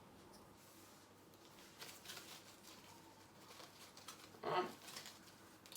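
Faint rustling and handling: a hand rummaging for a picture card in a bag, with one short louder rustle about four and a half seconds in.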